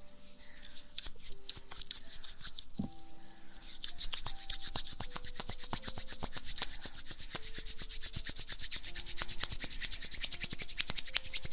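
Close-up rubbing on a microphone's ear during an ASMR ear massage: a dense, continuous run of fast scratchy crackles, louder from about four seconds in.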